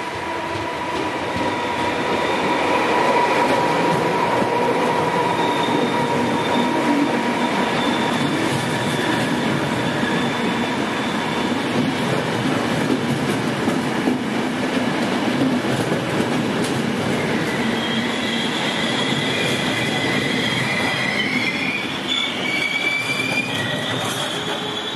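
Trenitalia E464 electric locomotive and its regional passenger coaches passing close by. Steady rolling noise with a whine in the first half, then high-pitched wheel squeal over the last several seconds as the coaches go by.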